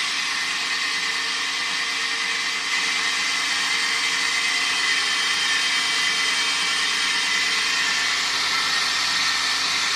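Homemade belt sander running steadily, its 550 W, 2800 rpm electric motor driving a hissing abrasive belt; the sound gets a little louder about three seconds in.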